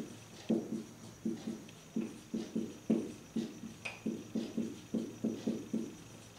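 Marker pen squeaking and scraping across a whiteboard in short strokes, a few a second, as handwriting is written out.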